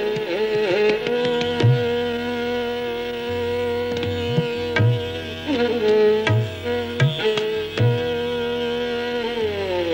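Indian classical music in Carnatic style: a gliding, ornamented melody over a steady drone, with low drum strokes at uneven intervals.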